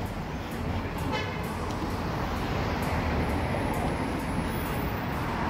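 Steady outdoor city background noise with a low traffic rumble. A brief high-pitched squeak comes about a second in.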